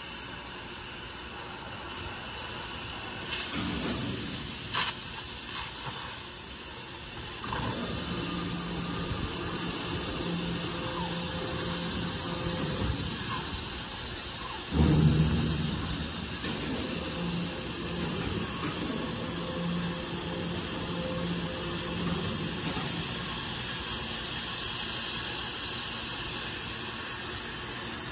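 Oxy-fuel gas cutting torch on a CNC cutting machine hissing steadily as it cuts through steel plate, with a louder surge of hiss a few seconds in and a brief low pop about halfway through.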